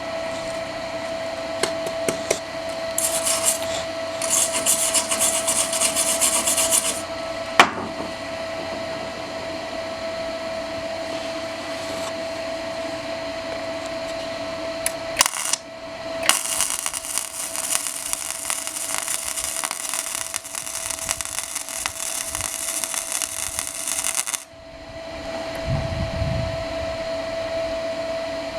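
Electric welding arc crackling and hissing in two runs, the first about four seconds long and the second about eight, with a few sharp clicks between them and a steady tone underneath.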